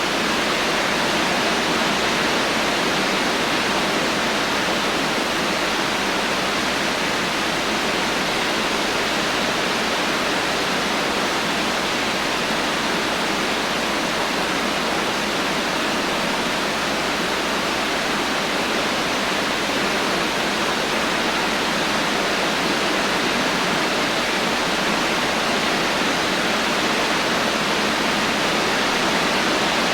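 Heavy rain falling steadily as a dense, even hiss, with no thunder and no distinct drops standing out.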